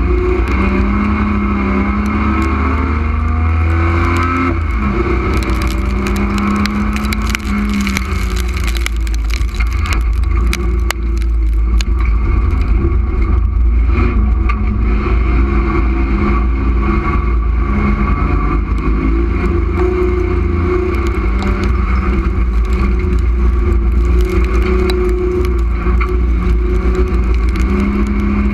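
Street stock race car's engine heard from inside the stripped-out cabin, running hard and rising and falling in pitch as it accelerates and lifts around a dirt track. Through the middle stretch a dense clatter of rattles and knocks rides over it.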